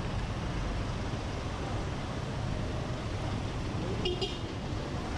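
Busy street ambience: a steady rumble of road traffic, with a brief high-pitched sound about four seconds in.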